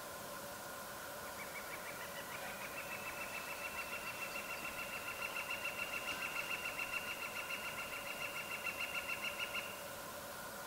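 A bird's long, rapid trill of repeated high notes, about five a second. It grows louder, then stops abruptly near the end.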